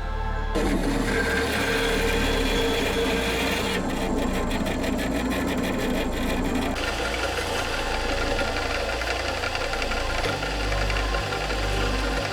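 Shop power tool working material, with a fast even rattle from about four to seven seconds in and a broader rushing noise after, over background music with a stepping bass line.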